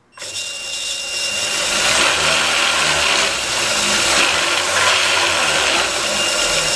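Treadmill DC motor on a PWM speed controller starting up and driving a 4x6 metal-cutting band saw through step pulleys and a V-belt. It builds up over the first couple of seconds, then runs steadily with a thin high tone in the whir.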